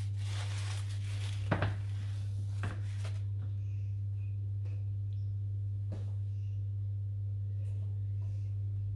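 Paper towel rustling as the rim of a glass baking dish is wiped, with a few light knocks as the dish is handled, over a steady low electrical hum.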